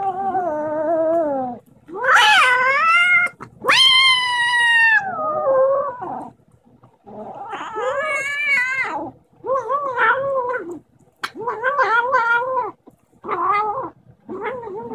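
A kitten yowling over its food bowl in a series of about eight drawn-out calls, the loudest and highest about two seconds in. It is the warning yowl of a kitten guarding its food from another kitten.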